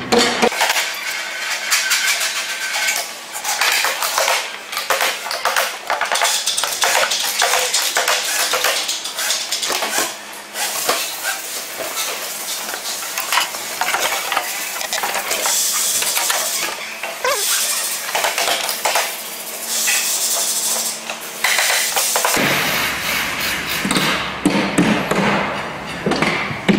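Quick knocks and clicks of plastic ink bottles and a sheet-metal ink tray being handled and set in place on the printer. A low hum comes in near the end.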